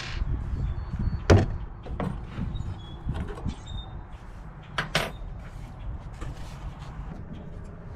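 Wooden cabinet door and its hardware being handled: scattered sharp knocks and clicks, the loudest about a second in and two close together about five seconds in, over a low rumble.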